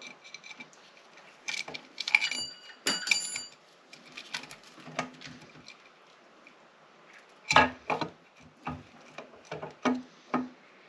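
Metal engine parts and hand tools clinking and knocking on a cylinder head while the exhaust camshaft and timing chain are fitted. A few clinks a couple of seconds in ring briefly, and a run of sharper knocks comes in the second half.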